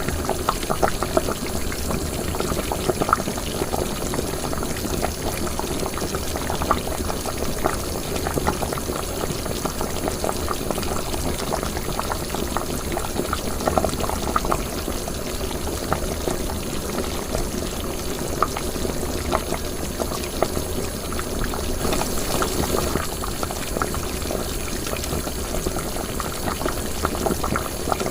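Liquid boiling in a cooking pot: continuous bubbling with many small pops.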